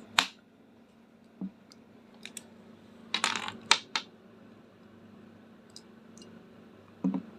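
Sharp clicks and snaps of a hand RJ45 crimping tool's cutting blade working around a network cable's outer jacket to strip it, with a cluster of clicks about three seconds in, over a faint steady hum.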